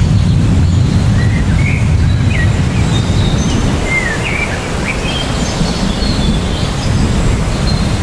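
Small birds chirping, a scattered string of short chirps gliding up and down in pitch, over a steady low rushing noise.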